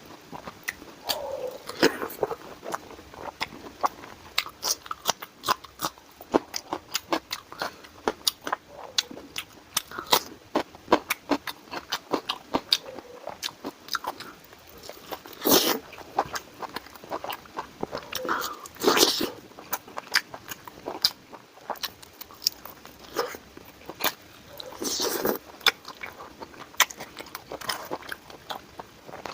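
A person eating close to the microphone: steady chewing and biting with many sharp wet mouth clicks, and three louder, longer noisy sounds around the middle and towards the end.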